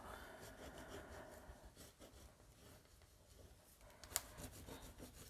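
Faint rustling and rubbing of paper as cardstock is handled and pressed onto a scrapbook page, with one sharp click about four seconds in.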